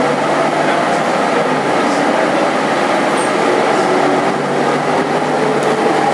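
Cabin noise of a SOR CN 8.5 midibus under way: steady engine drone and road rumble, with faint tones that drift slightly in pitch.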